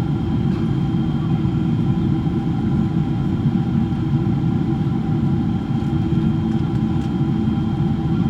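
Steady cabin noise of a Boeing 777-300ER in flight: a dense low rumble of airflow and its GE90-115B jet engines, with a few thin, steady engine whine tones above it.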